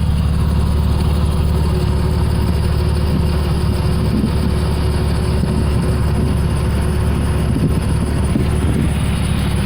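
Dodge Dakota pickup's engine, fitted with a home-made ram-air intake, running at a steady, even pitch with a low drone and no revving.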